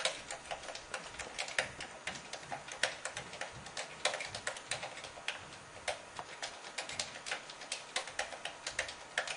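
Keys of an AlphaGrip iGrip handheld keyboard, a game-controller-shaped grip with keys on its back, clicking in a quick, uneven run of several presses a second as a sentence is touch-typed at speed.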